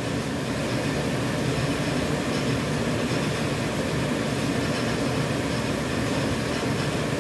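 Automatic dental-mask production line running, a steady mechanical hum and rattle of the machine feeding non-woven fabric off its rolls.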